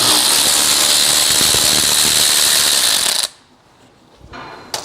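Cordless power wrench running steadily for about three seconds, spinning out a 14 mm rear brake caliper bracket bolt, then stopping abruptly.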